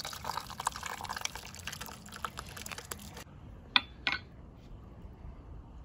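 Thick tomato sauce poured from a metal bowl over stuffed vegetables in a pot, splattering and dripping with many small wet clicks; it cuts off suddenly about three seconds in. Two sharp clinks follow, the first the loudest sound here.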